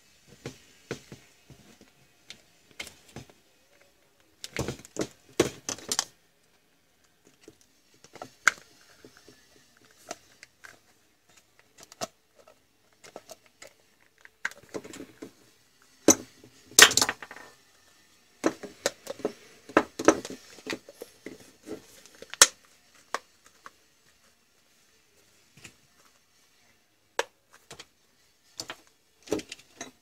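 Megaturbo hair dryer's plastic housing being handled and screwed back together: irregular clicks, knocks and small rattles, coming in clusters and loudest about halfway through, with sparse single clicks near the end.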